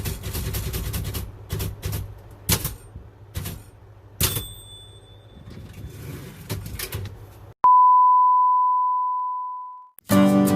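Typewriter keys striking in a quick run, then a few separate strikes, one of them followed by a short high ring. Past the middle a single steady beep starts sharply and fades out over about two seconds, and strummed guitar music starts near the end.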